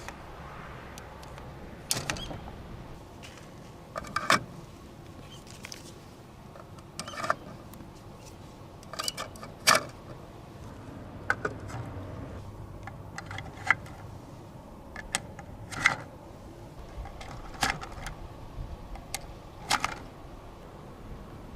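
Marbles clacking and knocking as they run down a nagashi somen spiral water slider, sharp irregular clicks, sometimes in quick clusters, over the steady low hum of the slider's electric pump and running water.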